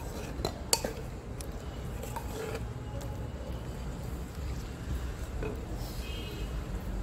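Wooden spatula stirring brinjal pieces in water and spices in a clay pot, with a few sharp knocks against the pot in the first second and a half, the loudest about three-quarters of a second in.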